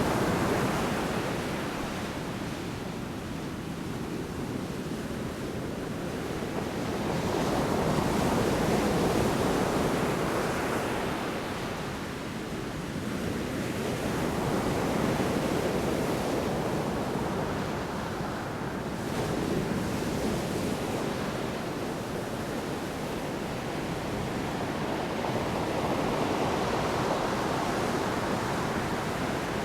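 Large storm waves breaking and crashing on the shore, with surging, swelling surf that rises and falls every several seconds.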